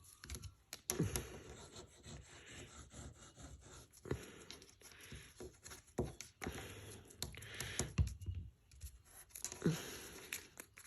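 Paper and card craft pieces being handled on a tabletop: intermittent rustling and scraping with a few light taps.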